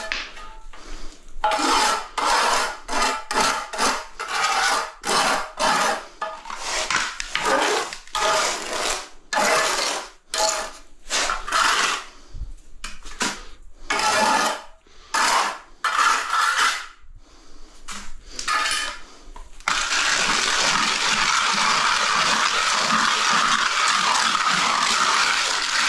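Cup grinder worked in a rapid string of short bursts, then running steadily from about twenty seconds in.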